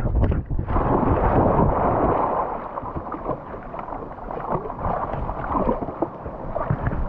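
A dog splashing and sloshing through a shallow rocky creek, heard from a camera on its harness: a few jolting thumps at first, then a dense rush of splashing from about a second in that settles into quieter sloshing with scattered knocks.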